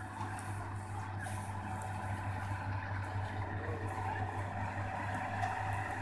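Combine harvesters' diesel engines running steadily while cutting wheat: a constant low drone with a haze of machinery noise above it.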